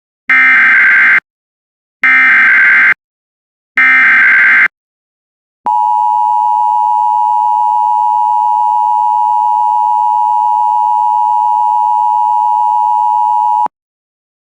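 Emergency Alert System header: three identical one-second bursts of SAME digital data, a harsh buzzing squeal, then about a second and a half later the steady EAS attention-signal tone, held for about eight seconds and cut off abruptly. Together they mark the start of a broadcast warning message.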